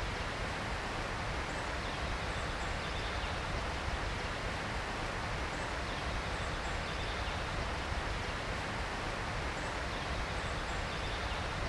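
Steady, even rushing noise of outdoor ambience, with faint high chirps now and then.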